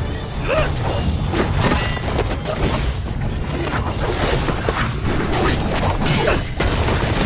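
Animated fight sound effects: a dense run of crashes and booming impacts, like stone shattering, with music underneath.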